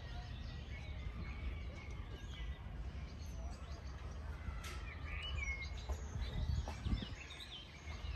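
Wild birds chirping and calling in a floodplain forest: many short sliding notes, scattered and overlapping, over a low steady rumble.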